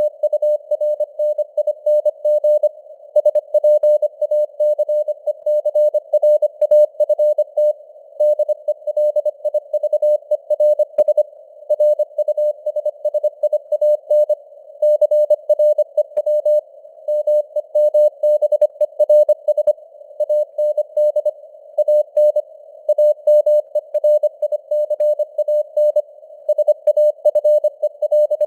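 Morse code (CW) sent at 25 words per minute as a single steady tone keyed on and off in rapid dots and dashes. It sits in a narrow band of simulated radio hiss, and its strength rises and falls with simulated fading (QSB).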